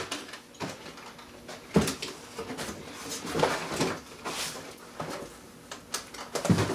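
Handling noises: a few knocks and scuffs as things are set down and moved, with a cardboard shipping box being lifted and handled near the end.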